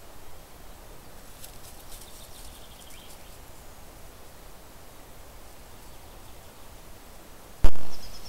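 Quiet outdoor ambience with a few faint high chirps a couple of seconds in, then a sudden loud thump near the end that dies away over about half a second.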